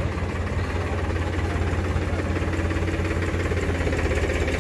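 Powertrac Euro 50 tractor's three-cylinder diesel engine running at low revs as the tractor is driven slowly past, with a steady low beat that grows a little louder as it comes alongside.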